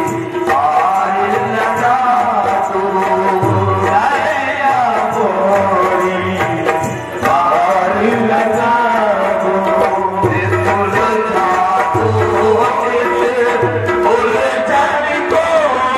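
Devotional ghazal music: a wavering sung melody over repeated tabla strokes.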